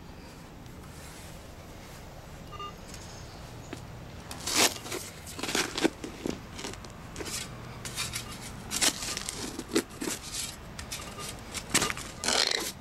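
Shovel blade being driven into soil and scraping dirt out of a deep hole: a run of irregular crunches and scrapes starting about four and a half seconds in.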